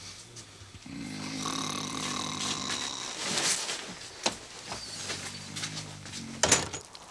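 A sleeper snoring: one long, low snore, a breath, then a shorter snore that ends in a loud burst near the end, with a few faint clicks in between.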